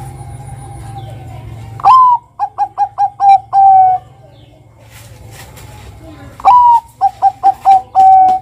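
Zebra dove (Bangkok perkutut) singing two phrases, the first about two seconds in and the second about six and a half seconds in. Each phrase opens with a loud falling note, runs into about five quick short coos at roughly five a second, and ends on a longer held coo.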